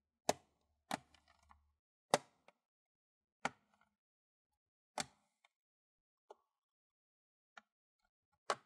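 Plastic retaining clips of a Lenovo IdeaPad L340 laptop's bottom cover snapping loose as the seam is pried open: a series of sharp clicks, roughly one every second or so, a couple of them fainter.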